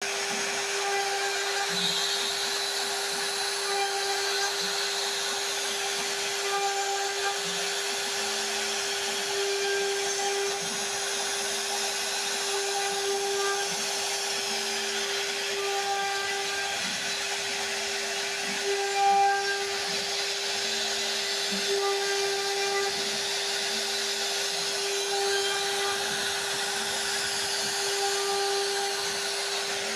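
CNC wood router spindle running at a steady high speed: a constant whine over a hiss of cutting.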